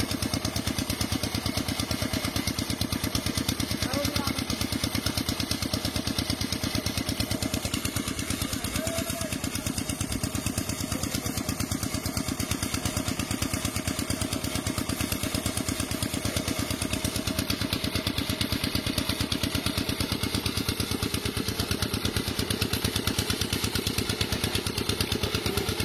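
An engine running steadily at an even, fast beat that does not change, with faint voices now and then.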